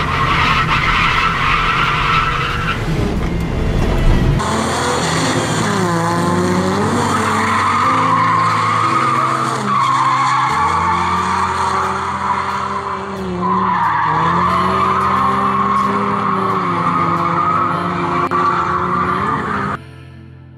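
V6 Ford Mustang drifting: the engine revs against long tyre squeals, heard from inside the cabin for about the first four seconds. Music then plays over the engine and squeal, and near the end the car sound drops away, leaving only the music.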